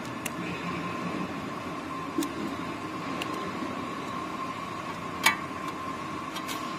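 Sharp metallic clicks of a hex key working the screws on a tipping machine's blade-die plate, a handful of separate ticks with the loudest about five seconds in, over a steady background hum.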